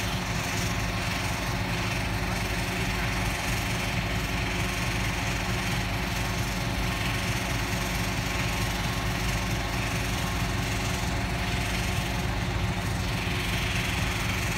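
Heavy diesel engine idling steadily, with an even, unchanging hum and no revving.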